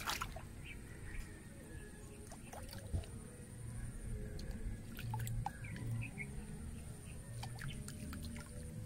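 Underwater sound picked up by a submerged camera while spearfishing: a low, muffled rumble of moving water with scattered sharp clicks and crackles. There is a sharper knock at the start and another about three seconds in.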